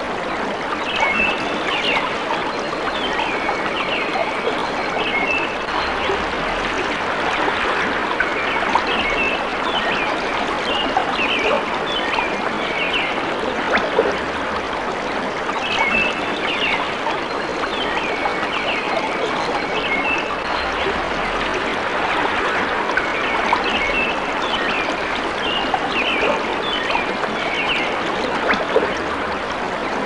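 Steady rush of a stream's running water, with birds chirping in short bursts of high calls that come and go every few seconds.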